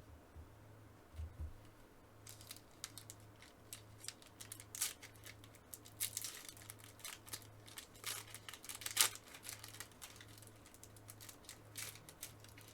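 Foil wrapper of a baseball card pack being torn open and crinkled: a run of quick crackles and rustles that starts about two seconds in and is loudest about three-quarters of the way through. A steady low hum lies under it.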